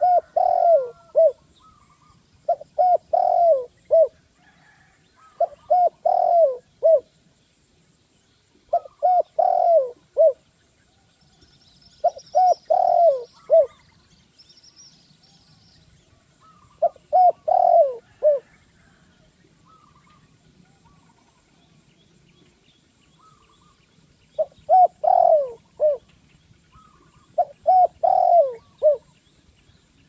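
Spotted dove cooing: eight phrases of three or four low coos, each phrase about a second and a half long and repeated every few seconds, with a longer pause in the middle. Faint chirps of other small birds sound between the phrases.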